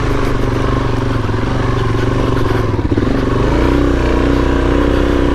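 Suzuki DRZ400S single-cylinder four-stroke engine running at steady revs, its pitch dropping and holding lower about three seconds in.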